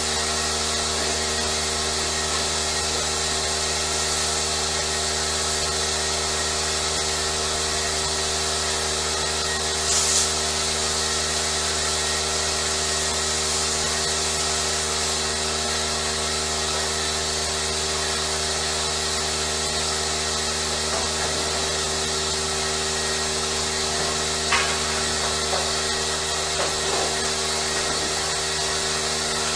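A motor-driven machine running steadily at constant speed, a hum of several fixed tones over a high hiss, with a brief louder hiss about ten seconds in and a single tick near the end.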